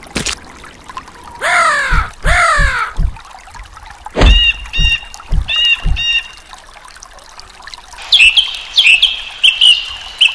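Cartoon birds squawking and chirping over trickling water. Two falling squawks come first, then four short chirps about half a second apart, each with a dull thud. A quick run of high squeaky calls follows near the end.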